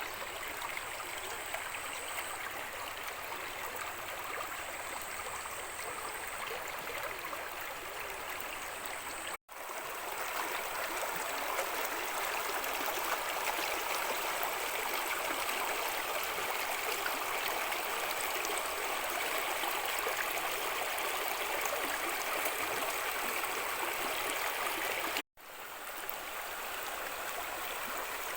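Mountain stream rushing steadily over rocks. It cuts out for an instant twice, about nine seconds in and near the end, and is a little louder between the two breaks.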